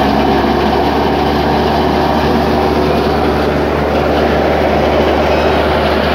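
Tractor-driven wheat thresher running steadily under load, a loud continuous mechanical drone of the tractor engine and the thresher's spinning drum.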